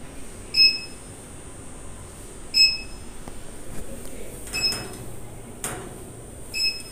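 Spatula stirring and scraping thick masala in an aluminium kadai. A sharp, ringing metallic clink comes about every two seconds.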